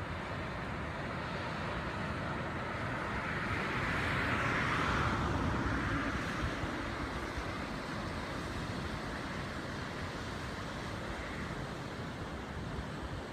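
Ocean surf washing onto a beach, a steady rush of waves, with one wave breaking and swelling louder about four to six seconds in before settling back.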